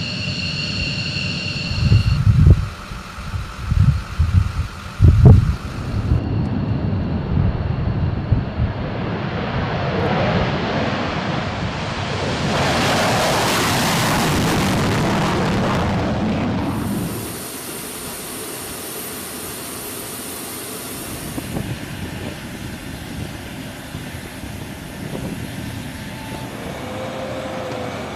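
F-15 fighter jet engines, first a steady high whine with a few loud low thumps. Then the roar of a takeoff swells to a peak about halfway through, falls away suddenly, and leaves a high thin whine and a quieter steady rumble.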